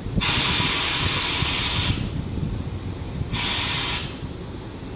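Compressed air hissing out of a stopped electric multiple-unit train's pneumatic system, in two bursts: a long one of nearly two seconds, then a shorter one of under a second.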